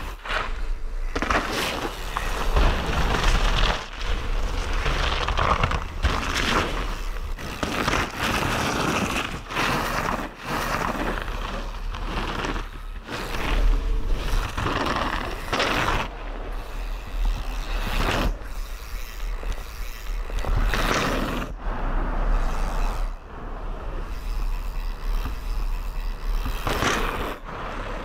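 Mountain bike ridden hard down a dirt forest trail: tyres rolling fast over dirt, with frequent knocks, rattles and scrapes over roots and bumps, the noise surging and dropping in uneven waves.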